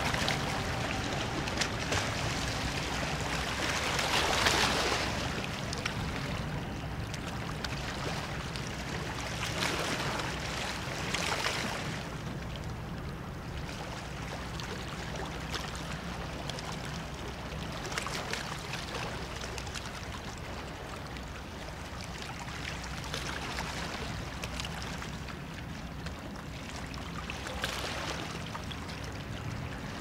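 River waves washing against the stone riverbank in swells every few seconds, the loudest about four seconds in, over a steady low hum.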